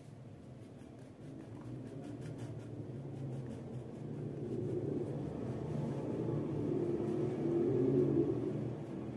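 A low rumble that grows louder over several seconds and eases near the end, with faint scratching of a crayon on paper early on.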